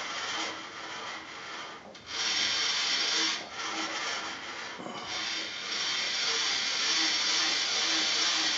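Milling machine table traversing the clamped rifle action past a dial test indicator, giving a steady hissing, rubbing mechanical noise. The noise dips briefly about two, three and a half and five seconds in.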